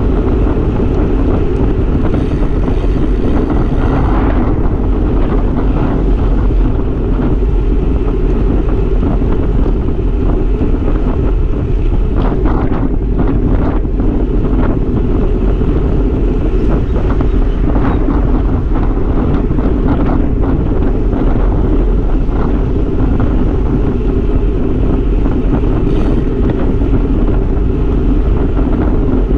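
Steady wind buffeting the microphone of a handlebar-mounted camera on a road bike ridden at speed, a loud low rumble with the bike's road noise underneath.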